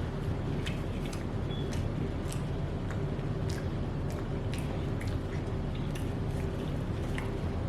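Close-up chewing of soft red velvet cake: scattered wet mouth clicks and smacks over a steady low hum.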